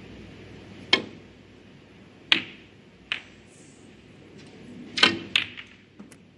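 Snooker balls clicking during a shot. The cue tip strikes the cue ball about a second in, then come sharp clicks of balls hitting each other and the cushions, with a quick cluster of clicks about five seconds in as the cue ball runs into the reds.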